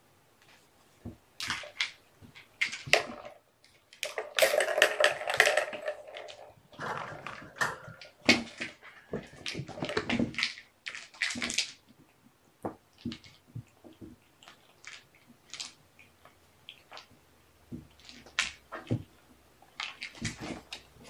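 Irregular clicks, taps and rustling, with a longer, denser stretch of rustling about four to six seconds in.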